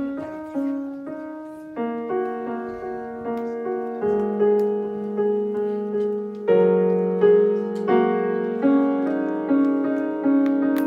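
Piano being played slowly: single notes and chords struck about every half second, each ringing and fading, over lower notes that change every couple of seconds.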